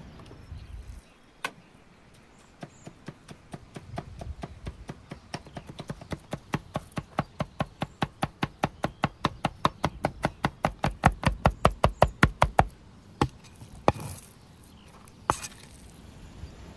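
Steel cleaver rapidly chopping raw beef liver into mince on a wooden log chopping block, about four to five strokes a second, each stroke a sharp knock. The strokes grow louder, then stop suddenly, and a few single chops follow.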